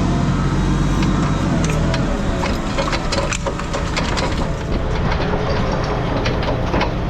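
Heavy equipment engine running, then a rapid series of sharp metal clanks and crunches as scrap metal is handled or crushed. The engine's steady note fades about two seconds in while the clanking carries on.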